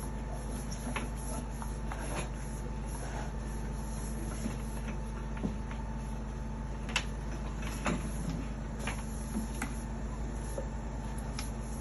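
High-pressure drain jetter running steadily while jetting a grease-blocked drain line, with scattered sharp clicks and knocks over the hum.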